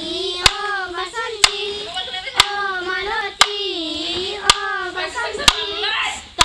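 A child singing a Bodo folk song in a high voice, with a sharp hand clap about once a second keeping the beat.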